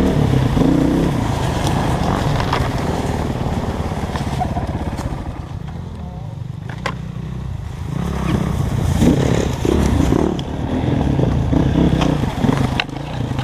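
Dirt bike engine revving up and down as it rides through the woods, with a few sharp cracks along the way.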